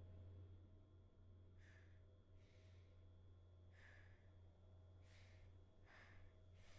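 Near silence: a low steady hum with faint, soft breath-like puffs about once a second.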